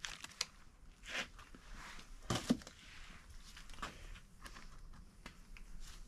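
Plastic packaging crinkling and rustling as a new BMW crankshaft hub is unwrapped by hand, with a few light clicks of parts being handled; the loudest rustle comes about two and a half seconds in.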